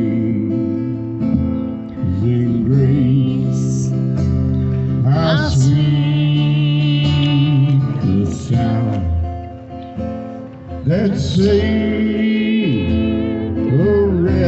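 Acoustic guitar strummed steadily, with a man singing long held notes over it in phrases a few seconds long.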